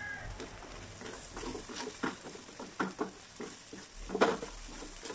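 Fish balls, squid balls and kikiam sizzling in a little oil in a nonstick wok as a spatula stirs them, with several short knocks and scrapes of the spatula against the pan, the loudest about four seconds in.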